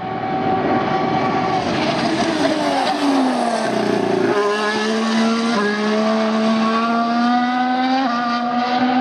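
A 2015 Formula 1 car's 1.6-litre V6 turbo engine at full race revs: the pitch falls as it slows, then climbs steadily as it accelerates, dropping sharply twice at upshifts.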